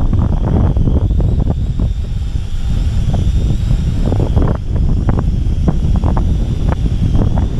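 Strong wind buffeting the microphone in irregular gusts, with a faint, steady, slightly wavering high whine from the Holy Stone HS120D quadcopter's propellers.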